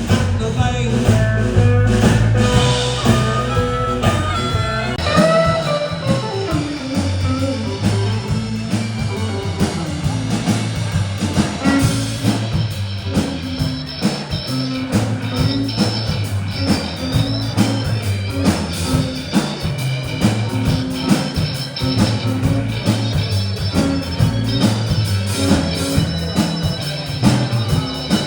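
Live band playing an instrumental break of a blues-rock song: electric guitar over bass and drum kit, with a steady beat.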